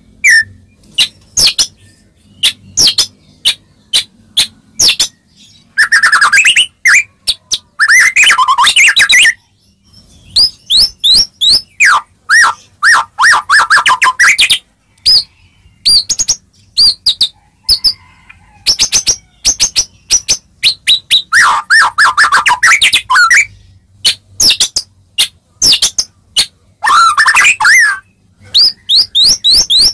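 White-rumped shama (murai batu) singing: runs of sharp clicking chips broken by bursts of quick whistled phrases and rapid trills, several times over.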